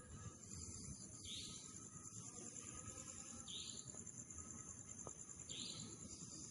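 Insects trilling steadily in a high, fast pulsing drone, with a short higher call repeating about every two seconds.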